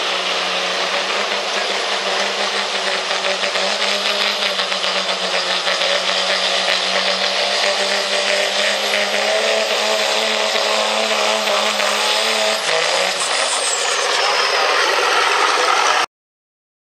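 Second-generation Dodge Ram diesel pickup pulling a sled at full throttle: a steady, loud engine note with a thin high whine above it. About twelve and a half seconds in, the engine note and the whine fall away as the pull ends, and the sound cuts out abruptly near the end.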